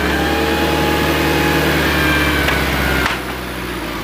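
A vehicle engine running steadily at close range, which drops off abruptly about three seconds in to a quieter running hum.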